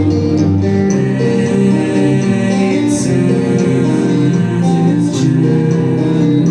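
Live band playing a gentle song, with electric and acoustic guitar sounds to the fore and a couple of crisp high hits midway.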